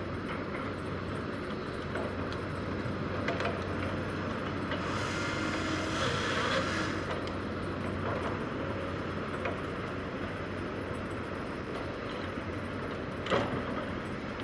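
John Deere 853M tracked feller buncher's diesel running steadily with rattling from the machine. A hiss comes in about five seconds in and lasts a couple of seconds, and a sharp clank near the end is the loudest sound.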